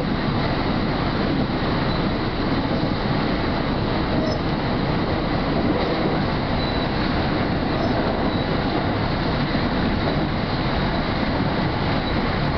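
Hanshin Main Line electric train running along the track, a steady noise of wheels on rail heard from inside the leading car.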